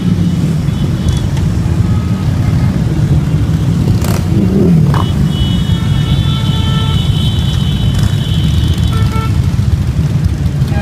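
A procession of large cruiser and touring motorcycles riding past close by, their engines making a continuous loud low rumble. One engine note rises and falls about four seconds in.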